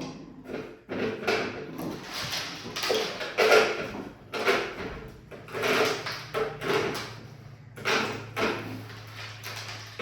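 Irregular knocking, rattling and scraping of things being handled, about one or two strikes a second, over a steady low hum that starts about a second in.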